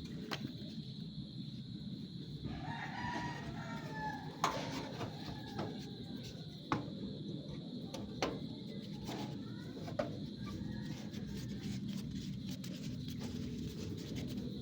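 A rooster crowing in the background, with a few sharp clicks over a steady low hum.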